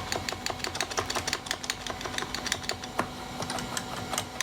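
Keys of a 1995 Apple Design Keyboard being typed in quick, uneven runs of clicks, someone entering commands at the computer's prompt. A faint steady hum lies beneath.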